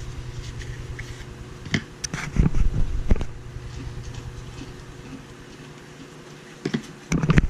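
Steady low hum with scattered knocks and handling noises, a cluster of them about two to three seconds in and again near the end.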